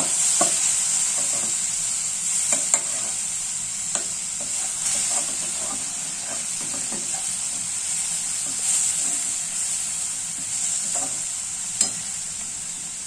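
Thick carrot halwa sizzling in a metal kadai while a metal spatula stirs and scrapes it over the pan's bottom, with scattered scrapes and knocks and a sharp click near the end. The mixture has cooked down dry and is catching on the bottom, the sign that the halwa is done.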